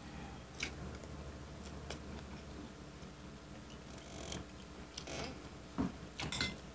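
Quiet eating sounds: scattered soft clicks and taps of a metal spoon against a plate, with mouth sounds, a few louder ones near the end.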